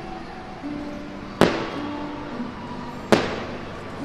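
Two firework shell bursts, sharp reports about a second and a half in and again near the end, each trailing off, over the show's music with held notes.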